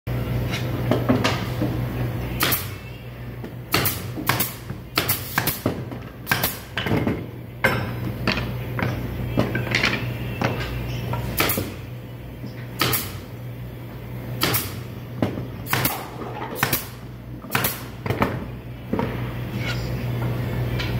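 Pieces of thin wooden board knocking and clacking on a wooden workbench as they are handled and fitted together: about twenty sharp, irregularly spaced knocks, over a steady low hum.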